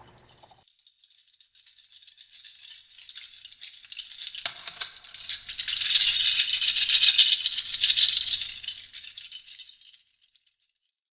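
A dry, fast rattling sound effect, like a shaker or rattle. It starts faintly, swells to its loudest in the second half, then fades away.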